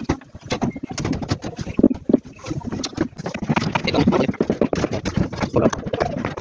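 Irregular clicks, knocks and rustling from someone walking across a roof slab's steel rebar mesh with a phone, footsteps on the bars mixed with handling noise.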